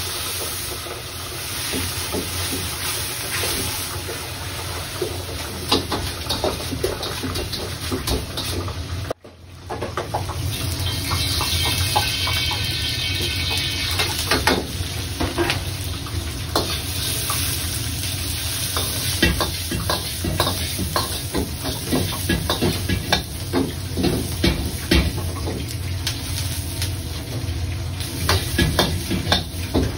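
Stir-frying in a wok: hot oil sizzling and a metal ladle knocking and scraping against the wok as dried chilies and chicken pieces are tossed, over a steady low kitchen roar. The sizzle swells after about eleven seconds as the chilies and vegetables go in. There is a brief break about nine seconds in.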